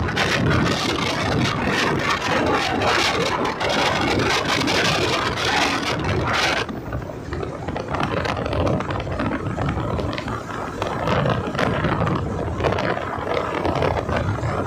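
Motorcycle on the move: wind rush and road noise over the engine's steady running. About six and a half seconds in, the hiss drops off and it gets slightly quieter.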